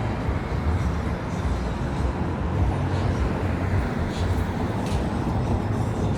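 City street ambience: a steady rumble of passing traffic.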